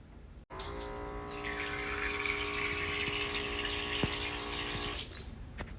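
Small battery-powered pump in a toy kitchen sink running with a steady whirring hum while its faucet pours a stream of water. The pump starts about half a second in and cuts off about five seconds in.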